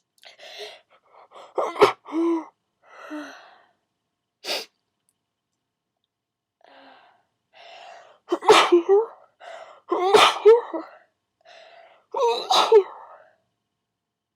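A person in a sneezing fit: about five sudden sneezes, each led in by catching, gasping breaths. The last three come close together and are the loudest.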